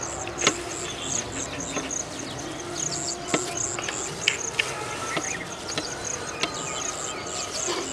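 Insects chirping steadily in a high, pulsing rhythm of about three pulses a second, with a few sharp clicks and short scrapes as flour is scraped off a steel plate into a steel pot.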